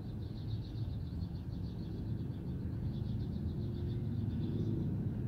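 Background noise: a steady low rumble, with a fast high-pitched trill over it that stops near the end.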